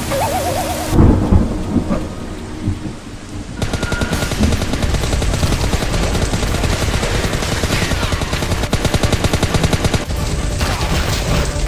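A thunderclap about a second in, followed by several seconds of heavy rain with a dense, fast crackle.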